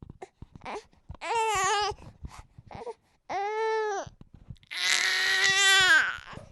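A baby crying in three wails, the last the longest and loudest.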